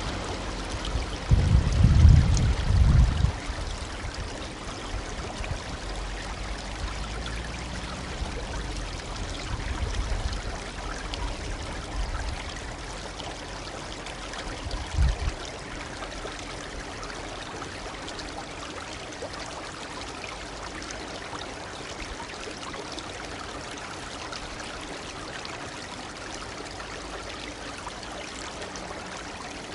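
Shallow brook babbling steadily over stones. There are a few low bumps about a second or two in and a short one around fifteen seconds.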